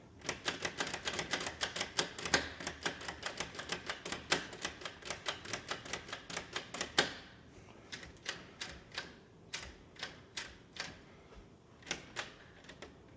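Front door lever handle and latch clicking as the handle is worked over and over, being tested for sticking after greasing with white lithium grease. Rapid clicks for about seven seconds, then slower, spaced-out clicks.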